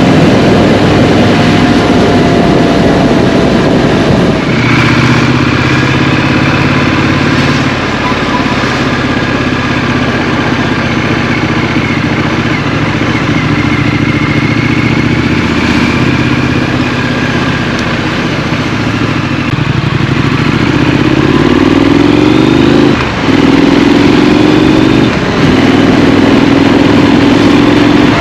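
Triumph Street Scrambler's parallel-twin engine running under a rider through traffic, mixed with wind and road noise. The revs climb about two-thirds of the way through, broken by two short dips that sound like quick gear changes.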